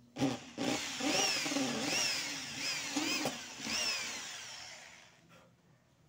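Corded electric drill with a thin bit boring pilot holes through a fan motor's aluminium end housing. Its whine jumps up and sags several times as the bit bites, then winds down and stops about five seconds in.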